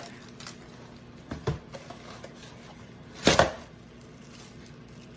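Kitchenware knocking on a countertop: a couple of light taps about a second and a half in, then one louder knock a little past three seconds.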